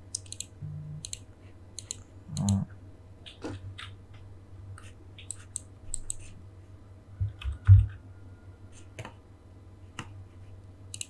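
Irregular computer mouse clicks and keyboard keystrokes on a desk, with a couple of dull low knocks, the louder one near eight seconds in. A faint steady electrical hum runs underneath.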